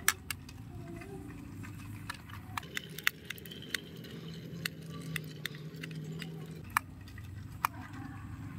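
Small screwdriver turning the screw of the battery cover on the underside of a plastic toy Philip train engine: a scatter of small sharp clicks and ticks of metal and plastic. A faint steady hum sounds for a few seconds in the middle.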